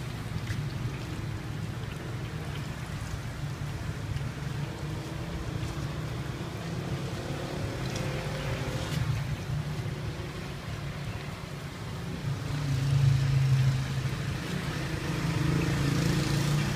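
A steady low motor-like rumble that swells about two-thirds of the way through, over the faint sizzle of Chinese fried dough sticks (youtiao) deep-frying in a wok of hot oil.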